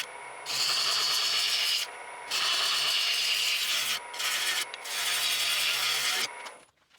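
Wood lathe turning a green sycamore bowl, a gouge cutting shavings in a steady hissing scrape over the hum of the lathe motor, in several passes with short breaks between them. The sound fades out near the end.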